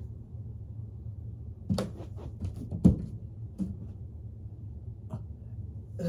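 Short knocks and thumps of a person's hands and body against a wall and the floor while going down into a backbend, several in quick succession about two seconds in, the loudest about three seconds in, and one lighter click near the end.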